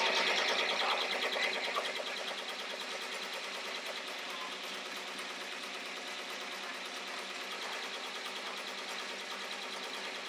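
Ricoma multi-needle embroidery machine stitching a design, a fast, steady needle chatter; it is a little louder in the first two seconds, then holds level.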